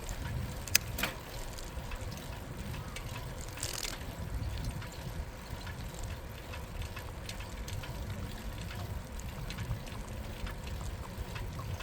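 Bicycle rolling along a park path: steady tyre and wind noise, with one sharp click about a second in.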